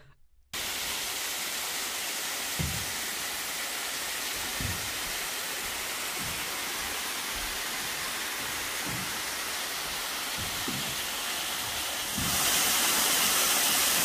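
Steady rushing of water in a rocky mountain stream, with a few soft low thumps. About twelve seconds in it jumps louder, to water cascading down a rock chute into a pool.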